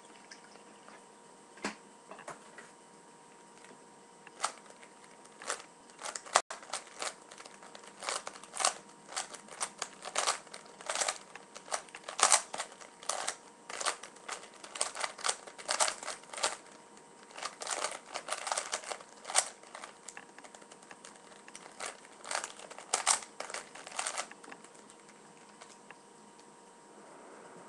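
Plastic Rubik's Cube being turned fast by hand: quick, irregular clicking and clacking of its layers. A few scattered turns come first, then a dense run of turns that stops a few seconds before the end.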